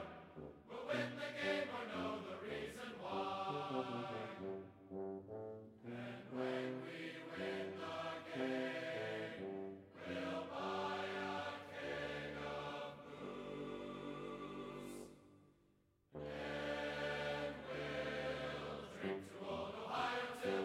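Background music: a choir singing held notes over brass. It fades out about fifteen seconds in, and a new passage starts abruptly a second later.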